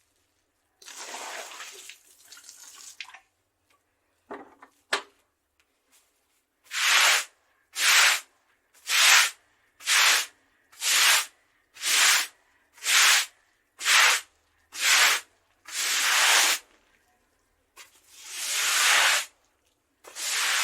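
Scrubbing on concrete: a softer scrape, then a steady run of short rasping strokes about one a second, the last few longer and drawn out.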